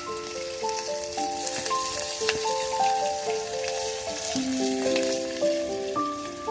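Goat meat frying in a pan, sizzling steadily with small crackles and pops, under background music playing a slow melody of held notes.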